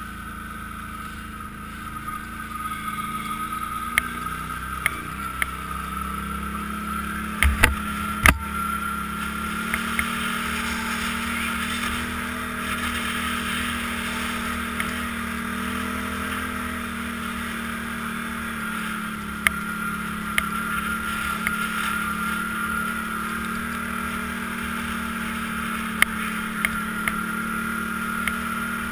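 ATV engine running steadily as the machine rides along a snowy trail, growing louder about two seconds in as it picks up speed. A few sharp knocks and rattles come through, the loudest cluster about eight seconds in.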